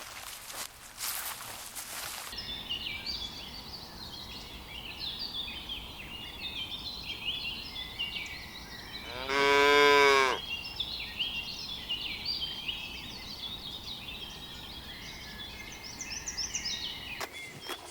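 A cow moos once, about nine seconds in: a single call a little over a second long that rises and then falls in pitch. It is the loudest sound, over continuous high-pitched chirping, with crackly noise in the first two seconds.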